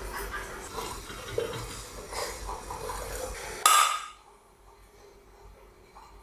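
Metal and glass parts of an antique coffee maker clinking and rattling as they are handled. About three and a half seconds in comes one louder ringing clank, and after it the sound drops away to a faint background.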